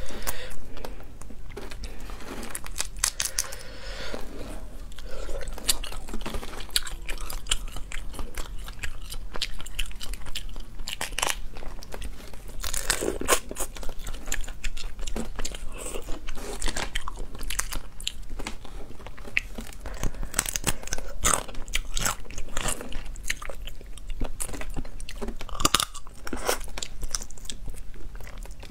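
Close-miked eating: cooked crayfish shells cracking and being pulled apart by hand, with chewing and crunching between many irregular sharp cracks.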